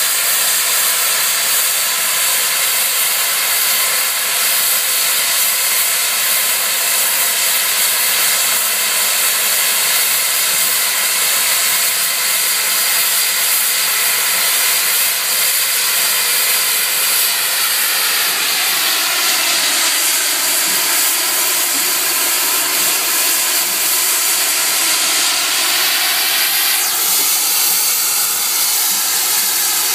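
SECR C Class 0-6-0 steam locomotive standing in steam, with a loud, steady hiss of escaping steam that hardly varies.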